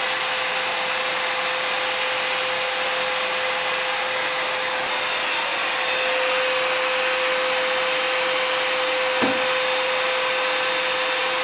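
Vacuum cleaner motor running steadily, a constant noisy hum with a steady high whine. A brief light knock sounds about nine seconds in.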